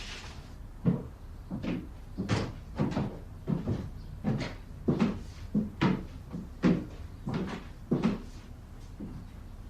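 Footsteps, about two steps a second in an uneven run of short knocks.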